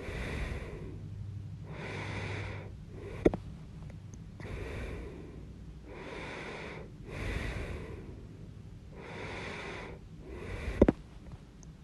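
A person with hiccups breathing audibly in and out, a breath every two seconds or so, with two sharp, loud hiccups, one about three seconds in and one near the end.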